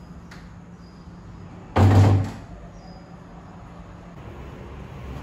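Wooden front door of a flat swinging shut, landing in its frame with a single heavy thud about two seconds in.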